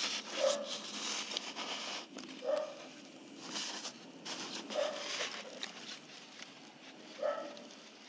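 Thin clear plastic bottle crinkling and crackling as fingers grip and turn it, with four short squeaks spread a couple of seconds apart.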